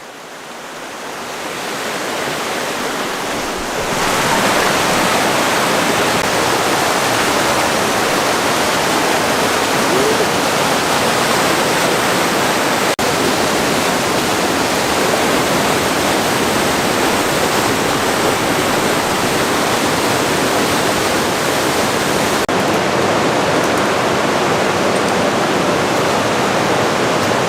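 Fast-flowing river rushing, swollen with rain. A steady, loud wash of water noise that grows over the first four seconds, then holds.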